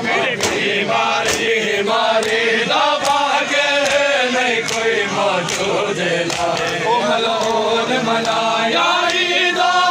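A group of men chanting a noha, a Shia mourning lament, in unison. Sharp slaps of hands striking bare or clothed chests (matam) land about once a second, keeping the beat.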